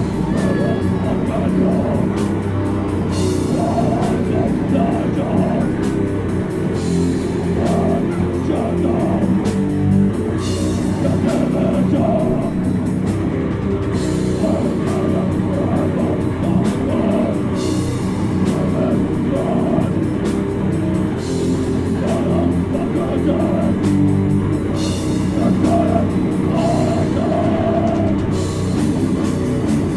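Death metal band playing live: distorted guitars and fast, dense drumming with vocals over them.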